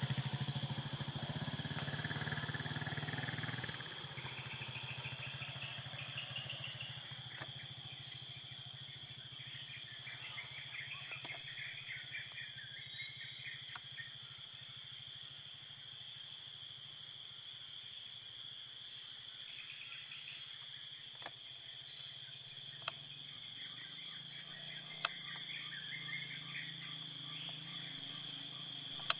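Rainforest ambience: insects drone steadily at a high pitch while birds repeat short chirps throughout. A low engine hum drops away about four seconds in, and a few sharp clicks stand out near the end.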